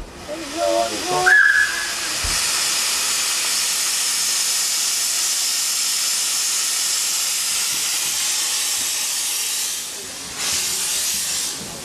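Small Decauville 0-4-0T steam locomotive blowing steam from its cylinder drain cocks in a steady loud hiss as it moves off slowly. The hiss eases for a moment near the end and comes back. A short high-pitched note sounds about a second in.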